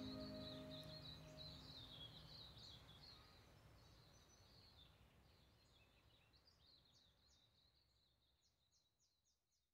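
Faint birdsong: quick high chirps that fade away steadily, with a short run of rapid chirps near the end. The last held notes of background music die out in the first second or two.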